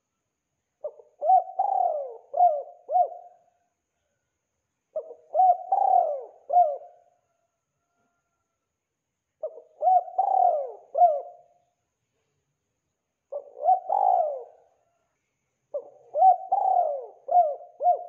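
Spotted dove cooing: five phrases of several coos each, repeated about every four seconds with silent gaps between.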